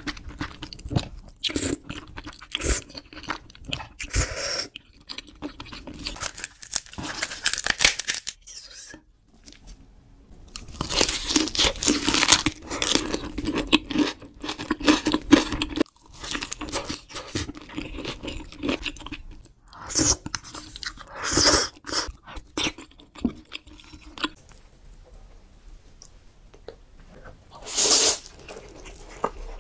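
Close-miked eating sounds: noodles slurped and food chewed with crunchy bites, coming in irregular bursts with short pauses between. Near the end, a loud slurp of spicy instant noodles.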